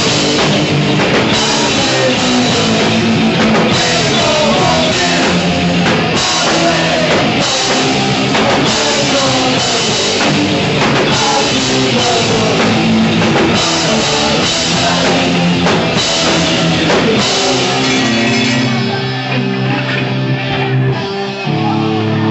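Punk rock band playing live: distorted electric guitar, bass, a drum kit with cymbals, and sung vocals. About three-quarters of the way through, the cymbals stop and the sound thins out, then the band comes back in on a loud held low chord near the end.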